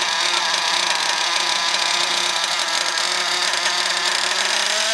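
Small nitro engine of a radio-controlled monster truck idling steadily while the truck stands still.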